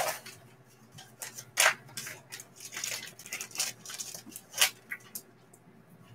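Black plastic wrapping crinkling and tearing in irregular bursts as it is pulled off a stack of graded trading-card slabs by hand.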